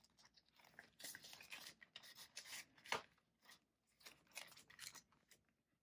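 Faint rustling of paper banknotes and clear plastic binder envelopes being handled, in short scattered bursts with a sharper tick about three seconds in.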